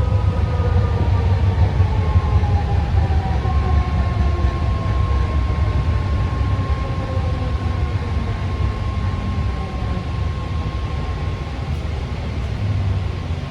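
BART Fleet of the Future electric train slowing into a station: the motors' whine falls in pitch over a heavy low rumble, settling into one steady tone that stops about a second and a half before the end.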